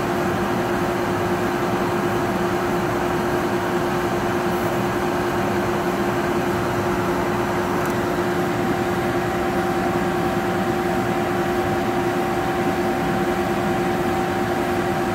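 Laser cutter running while it cuts 3/8-inch acrylic: a steady whirring hum with a constant low tone.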